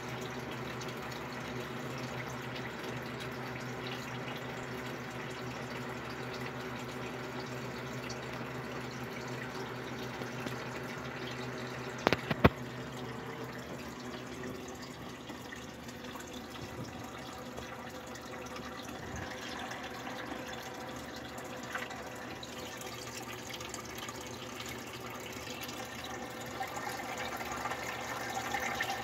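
Aquarium filter running in a turtle tank: water trickling steadily over a low hum. Two sharp clicks come about twelve seconds in.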